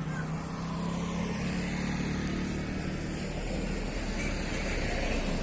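Steady road traffic: motor vehicle engines running and passing, with a low rumble growing stronger about halfway through.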